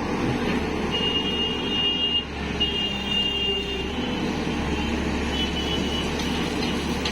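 Tata Hitachi EX 215 excavator's diesel engine running steadily under load. Two long high-pitched beeps from a warning alarm sound about a second in, with a shorter one about five seconds in.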